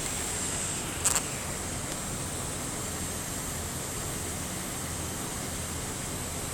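Ford Focus running, with a steady rush of drivetrain and road noise and a thin, high-pitched steady tone: the abnormal transmission noise. A brief click about a second in.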